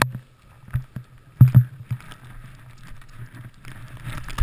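Muffled knocks and rubbing against an action camera's housing as a gloved hand handles it, a handful of sharp bumps over a low rumble. Near the end the skis start sliding through powder snow, a soft hiss.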